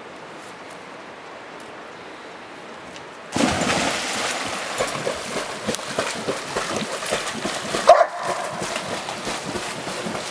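Soft river flow, then from about three seconds in a dog splashing loudly as it swims through the river water, with a short yip about eight seconds in.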